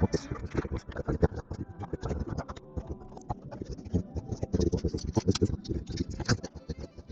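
Plastic LEGO pieces being handled and pressed together: rapid, irregular clicking and rattling of small bricks.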